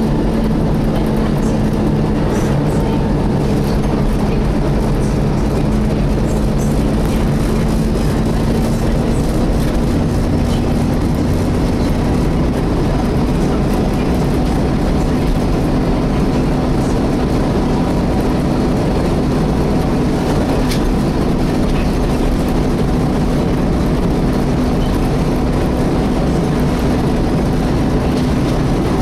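Volvo B7TL bus's engine cooling fan running with a steady whine over the engine noise, heard from inside the passenger saloon. The whine rises slightly in pitch about ten seconds in.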